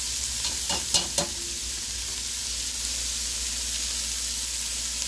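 Diced onions, bell peppers and onion tops sizzling steadily in a cast-iron pot as they are stirred, with a metal spoon clicking against the pot three times about a second in.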